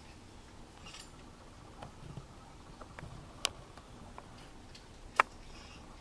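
Pileated woodpecker striking a fallen log with its bill while foraging: a few irregular, sharp knocks, the loudest two a little past the middle and near the end.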